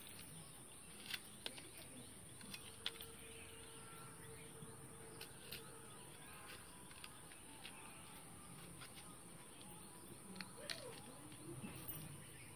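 Quiet background with soft, scattered clicks, about nine of them spread irregularly, from okra pods being sliced against an upright fixed cutting blade (a bonti).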